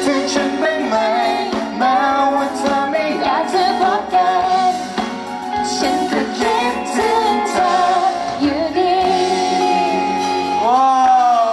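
Live pop music: a male and a female singer sing together over a band with electric guitar. Near the end a held sung note bends up and then slides down.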